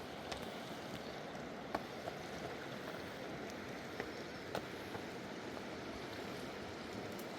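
Steady rush of a full-flowing mountain river, with a few faint light clicks on top.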